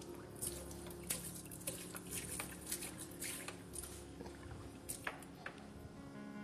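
Water splashing and dripping in a small metal pot as freekeh is rinsed in water and the floating chaff is tipped off, with a faint steady hum underneath.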